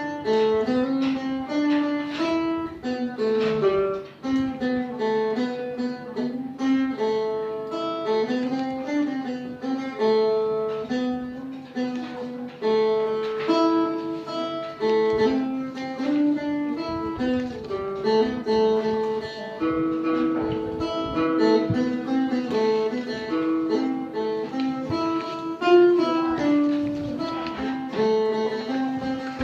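Phin, the Isan Thai plucked lute, playing a lively melody of quick plucked notes without a break.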